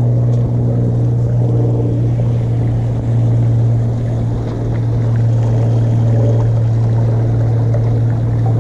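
A motor running steadily with a loud, even low hum that does not change in speed.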